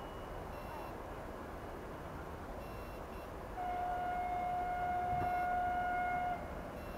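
A diesel locomotive's horn, the approaching TEP70, sounds one steady high note for nearly three seconds, starting about halfway through. Faint short beeps repeat every second or two underneath.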